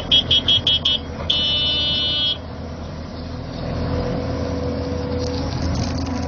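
A high-pitched vehicle horn beeps six times in quick succession, then sounds once for about a second, over the steady low running of heavy diesel engines.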